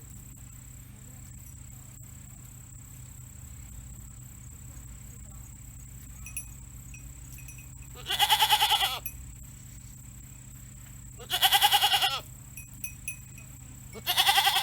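Mother goat bleating three times, each call about a second long with a wavering, quavering pitch, a few seconds apart: calling for her kid, which has been taken away to another place; the owner takes it for a worried call.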